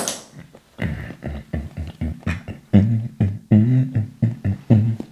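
A man humming a rhythmic tune through closed lips in short, low notes about two or three a second, louder from about halfway. A single sharp crack at the very start.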